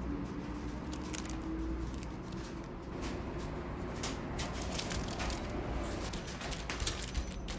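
Small sharp clicks and taps of metal cookie cutters against a stainless steel worktop as they are pressed through cookie dough, more frequent in the second half, over a steady low hum.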